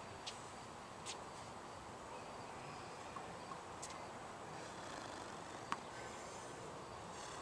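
Quiet outdoor background with faint insect chirring and a few short sharp clicks, the loudest about two thirds of the way through.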